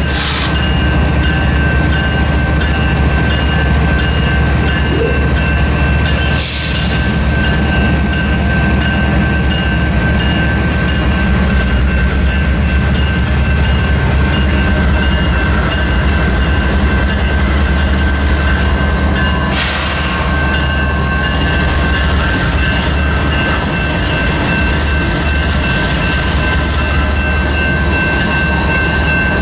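Union Pacific diesel locomotives rumbling steadily past a grade crossing, with the coal hopper cars rolling along behind them near the end. A steady high ringing runs over the rumble, and there are brief hissing bursts at about 6 and 20 seconds in.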